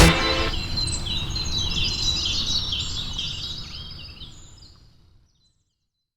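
Birds chirping, many short rapid calls over a low rumble, fading out to silence about five seconds in.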